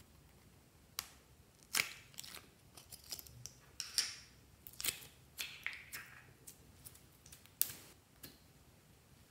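Many irregular sharp clicks and crackles of a bow-shaped plastic glitter-slime container being pulled open and handled, starting about a second in and stopping near the end.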